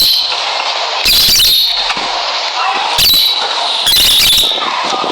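Lovebirds chattering constantly, broken by three loud, shrill screeches: about one, three and four seconds in.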